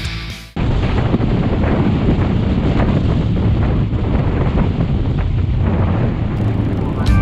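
Wind buffeting the camera microphone over the steady running of a Royal Enfield Himalayan 400's single-cylinder engine while riding, after background rock music cuts off about half a second in.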